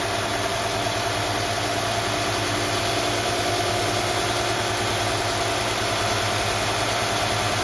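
Mercedes-Benz KE-Jetronic engine idling with a steady hum. The engine has a high-idle fault of about 1,500 RPM, with the idle control valve as the most likely culprit.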